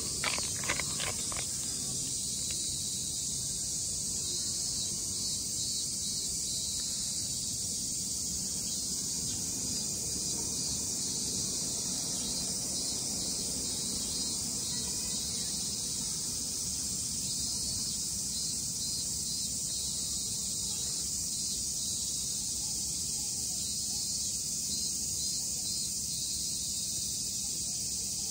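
Steady high-pitched chorus of insects buzzing in the background. A few sharp clicks sound in the first second or so.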